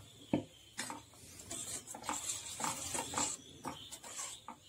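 A spoon stirring thick curry in a stainless steel pot, swishing through the gravy and knocking against the pot's sides a handful of times.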